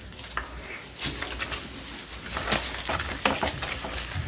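Gloved hands and a plastic rice paddle spreading and patting cooked rice onto a sheet of seaweed on a bamboo rolling mat: a run of soft pats and light clicks.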